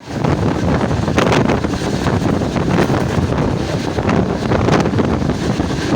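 Heavy wind buffeting the microphone over a steady low rumble.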